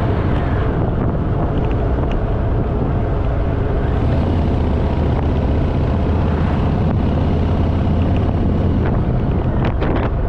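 Harley-Davidson Fat Boy V-twin engine running at a steady cruising speed on the open road, with wind rushing over the microphone.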